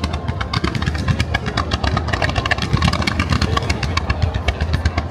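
Fireworks display: a rapid volley of comets fired in a fan from ground mortars, a fast string of sharp reports, many a second, over a low rumble.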